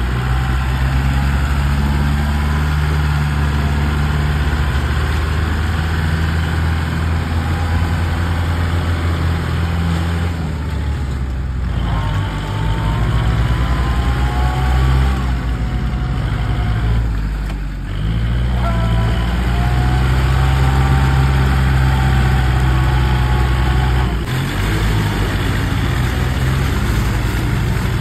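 Kubota tractor's diesel engine running steadily under load as the tractor works through deep mud. A wavering higher whine rides over the engine through the middle stretch.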